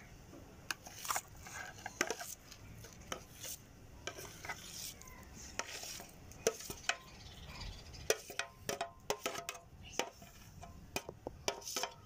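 Mashed boiled potatoes being scraped out of a stainless steel bowl with a plastic scraper: repeated scrapes and light clicks of plastic on metal, coming faster in the second half.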